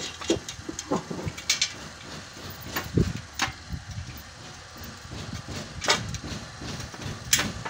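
A handful of irregular clicks and knocks from metal parts being handled and fitted together on a steel battery rack frame.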